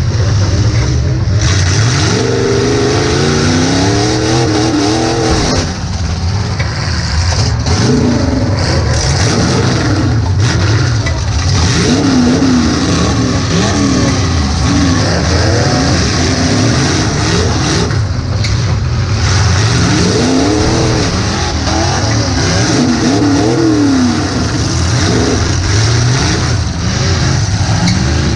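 Demolition derby car's engine, heard from inside the car, revving up and dropping back over and over under hard throttle, with a steady low rumble beneath.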